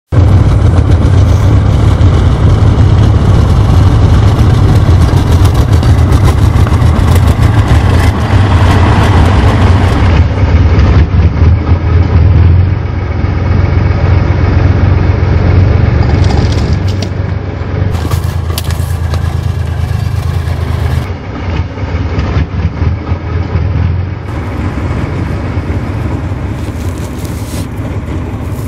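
A tank's engine running loud and deep, easing off about halfway through and again near the end, with a few brief sharp clanks about two-thirds of the way in.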